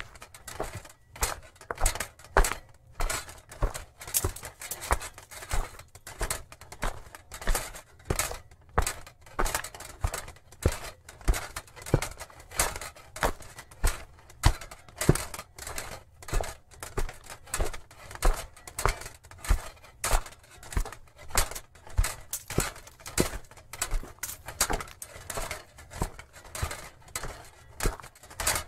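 Booted footsteps of a medieval armoured knight walking at an even pace, about three steps every two seconds.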